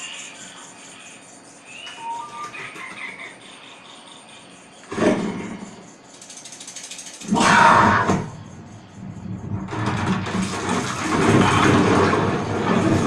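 Dolby demo trailer sound effects played through a Yamaha NS-P51 front speaker set driven by a Pioneer VSX-323K AV receiver in Dolby mode. Quieter effects give way to a sharp hit about five seconds in and a louder, deeper boom about seven seconds in, then a dense swell of sound builds toward the end.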